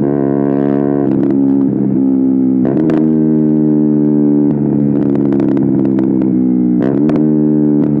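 KTM Duke 125's single-cylinder engine running through an Akrapovic exhaust at steady high revs while riding, its pitch shifting briefly about three seconds in and again near seven seconds. Short sharp clicks are scattered over the engine note.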